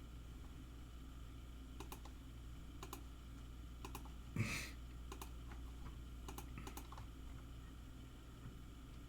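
Scattered key clicks on a computer keyboard, a few taps at a time, with one louder thump about halfway through, under a low steady hum.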